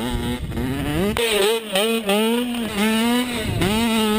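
Dirt bike engine revving up and down as the throttle is worked, its pitch dipping and climbing again several times.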